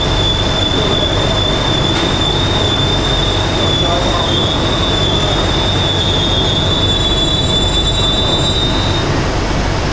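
Beijing Metro SFM04 subway train heard from inside the car, a steady running rumble with a loud high-pitched squeal over it from the running gear. The squeal stops near the end as the train reaches a station platform.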